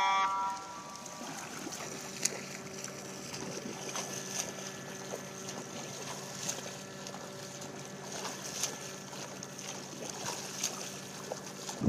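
A boat motor hums steadily throughout, with light water splashes from a swimmer's freestyle strokes. A horn blast, the start signal, cuts off right at the beginning.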